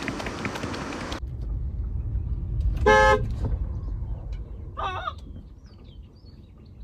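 A car horn sounds once, a short toot about three seconds in, over a low steady rumble heard from inside the car.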